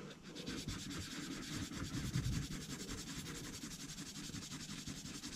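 A 400-grit sanding stick rubbed back and forth on a small plastic model-kit part, a soft, steady rasp of quick, even strokes, smoothing away an uneven raised area.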